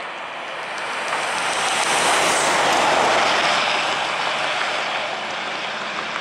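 Airbus A320 jet engines and airframe noise as the airliner rolls past on the runway just after landing, swelling to a loud peak about three seconds in and then fading as it goes by.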